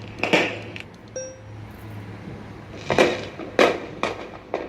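Recorded fireworks played through small portable speakers: a bang near the start, then four more in quick succession in the last second and a half, each with a short ringing tail. A brief ringing ping about a second in.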